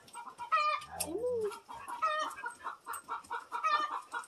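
Chickens clucking: a quick run of short clucks with a louder, higher call about every second and a half. A brief low sliding vocal sound comes about a second in.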